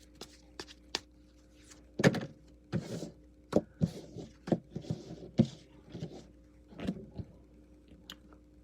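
A deck of tarot cards being shuffled and handled: irregular soft slaps and rustles of the cards, starting about two seconds in. A faint steady hum lies under it.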